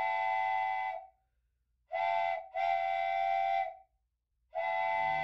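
Steam locomotive whistle blowing a chord of several tones in a series of blasts: one ending about a second in, a short blast, then two longer ones.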